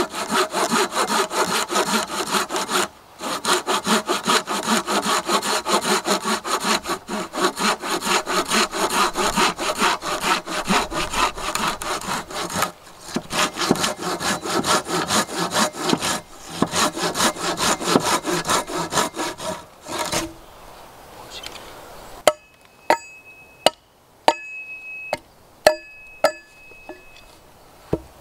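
Silky Bigboy 2000 folding pull saw cutting through a wooden pole in quick, even strokes, with a few brief pauses. It stops about two-thirds of the way through, and near the end comes a series of sharp, separate knocks of wood being struck, some with a short ring.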